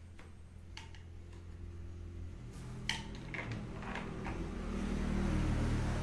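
Hard plastic clicks and taps as a black threaded PVC fitting with a rubber washer is handled and screwed onto a grey PVC pipe, several sharp clicks between about 1 and 4 seconds in. Under them a steady low hum, and a steady noise that grows louder through the second half and is the loudest thing near the end.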